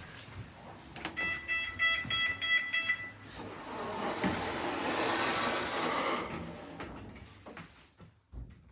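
Lift's electronic beeper sounding a quick run of beeps, about four or five a second, for about two seconds. A steady rushing noise of the moving lift follows, fading away near the end.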